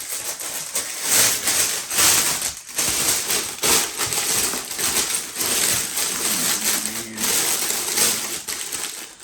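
Crinkling and rustling of a thin plastic slow-cooker liner being unfolded and fitted into a crock pot, irregular and continuous.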